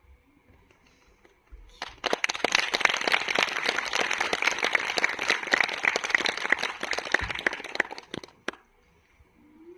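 A burst of applause, many hands clapping fast and irregularly, starting abruptly about two seconds in and stopping after about six seconds.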